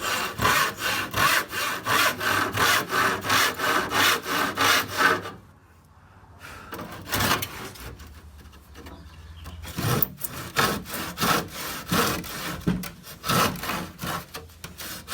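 Handsaw cutting through a pallet-wood board in quick, even back-and-forth strokes. The sawing stops a little after five seconds, a few light handling sounds follow, and it starts again about ten seconds in.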